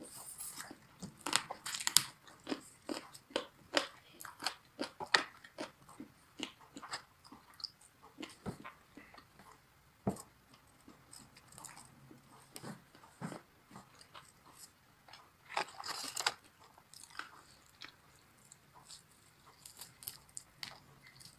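Close-up chewing and crunching of sauced Korean fried chicken, the coating cracking in irregular clicks, busiest in the first few seconds and again about three-quarters of the way through.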